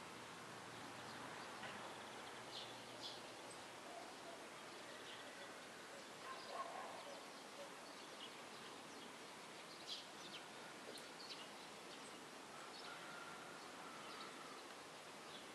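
Faint outdoor background hiss with scattered short, high bird chirps from distant birds.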